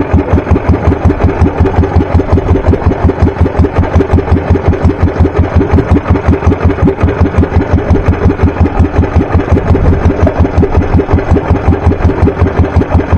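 Small boat engine running steadily with an even, rhythmic chug of about five or six beats a second.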